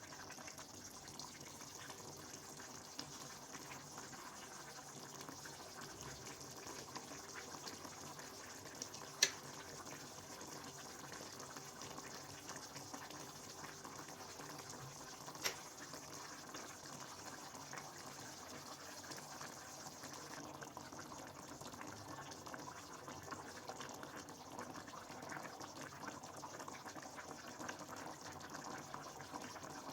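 Faint steady sound of water in the kitchen, with two sharp clicks, one about nine seconds in and one about fifteen seconds in.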